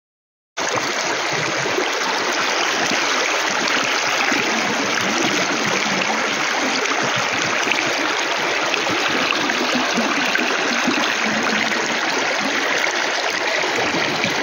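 Rushing water of a shallow river riffle, current running over stones in a steady hiss that starts abruptly about half a second in.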